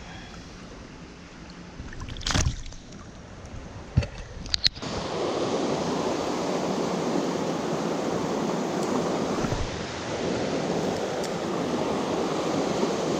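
Fast river water rushing, a loud steady roar that comes in suddenly about five seconds in. Before it, a quieter stretch of low wind rumble with a few sharp knocks.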